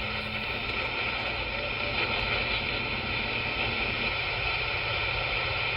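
CB radio receiver static: a steady hiss from the radio's speaker on an open channel, heavy with interference (QRM), with a low rumble underneath.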